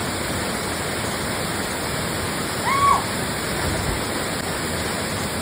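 Waterfall rushing steadily into its pool, with one brief high call about three seconds in.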